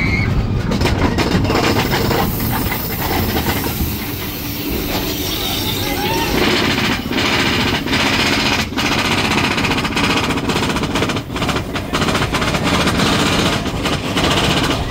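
Roller coaster train running along its track with a loud, rapid rattling clatter.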